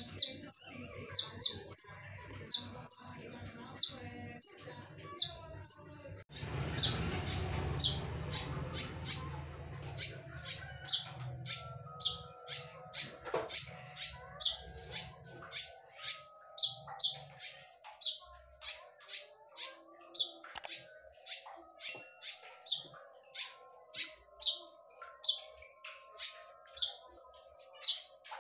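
A konin (yellow-bellied prinia) calling over and over in a sharp, loud chip, each note a quick downward sweep, about two a second. A low rumble sits under the calls for several seconds from about six seconds in.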